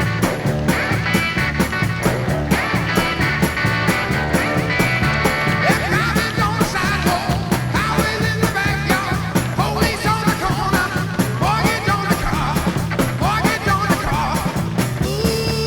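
Rock music with a steady, fast drum beat and guitar.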